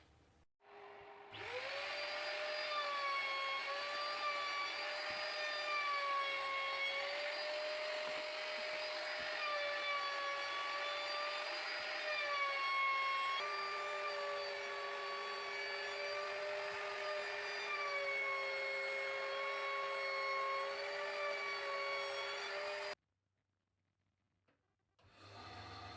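Electric router spinning up to a high-pitched whine and running steadily, its pitch dipping and recovering slightly as it cuts, likely rounding over the edges of the wood. The whine cuts off abruptly near the end.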